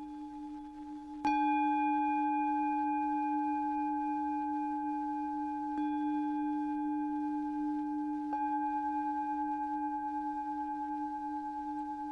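A singing bowl struck three times: once about a second in, once near the middle and once about two-thirds through. Each strike renews a long, steady ring of a few overtones. The first strike is the loudest.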